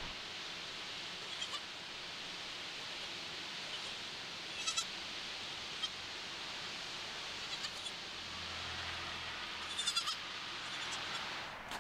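Feral goat kid bleating in short, high-pitched calls, a few times, loudest about five and ten seconds in, over a steady hiss.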